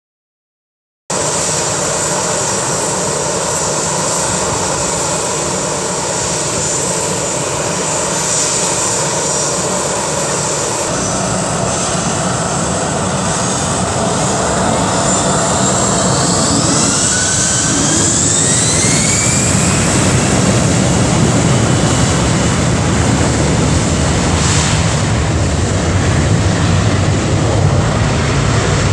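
Airbus A321's twin jet engines at close range, starting about a second in. Around the middle a whine rises in pitch as the engines spool up to takeoff thrust, and a deep, loud takeoff roar builds through the rest.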